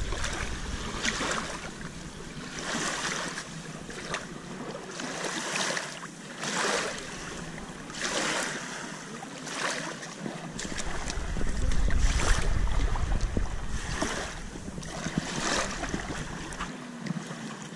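Small waves lapping and washing on a sandy shoreline, swelling and fading about every second and a half, with wind rumbling on the microphone through the latter half.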